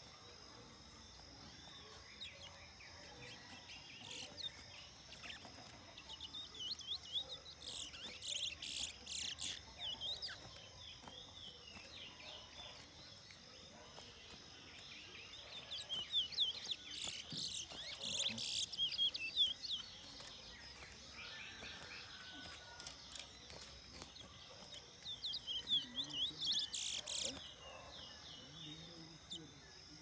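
Caged songbird singing in three bouts of rapid, high, twittering song, with pauses between.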